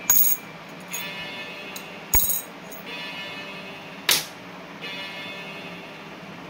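Metal coins clinking, about five sharp strikes spread over several seconds, each leaving a high ringing tone that fades.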